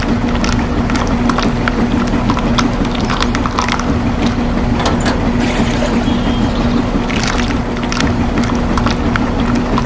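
A small electric motor of a toy RC vehicle running at a steady pitch, with scattered clicks and scrapes over it.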